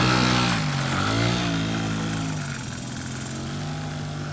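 Small two-stroke engine of a 1987 Honda Spree scooter running under throttle as it is ridden. Its pitch dips and rises about a second in, then settles lower and steadier as it grows fainter.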